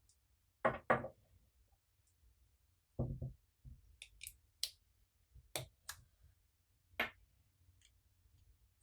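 Scattered knocks and clicks of small objects and tools being handled on a tabletop: two knocks about a second in, a duller thud near three seconds, then a run of sharp clicks, the last about seven seconds in.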